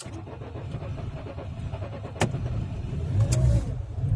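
Second-generation Ford Focus petrol engine cold-starting in hard frost: cranking and catching, then running unevenly and getting louder, with two sharp clicks about two and three seconds in. It runs rough and misfires, typical of a frozen engine on its first start.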